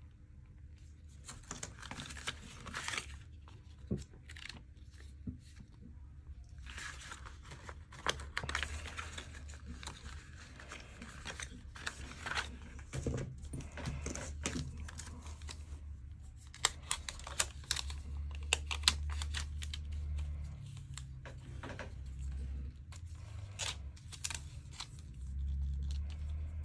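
Phone packaging being handled: cardboard inserts, a plastic-wrapped cable and the phone's protective wrap rustle and crinkle in irregular bursts, with scattered sharp taps and clicks, more of them in the second half. A steady low hum lies underneath.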